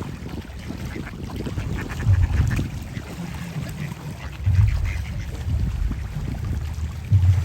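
Ducks quacking in short, scattered calls. A low rumbling bump comes three times, about two, four and a half and seven seconds in, and these are the loudest sounds.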